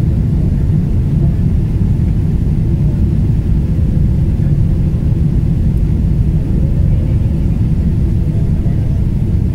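Steady low rumble of jet engines and airflow heard inside an airliner cabin over the wing, on final approach and coming down onto the runway.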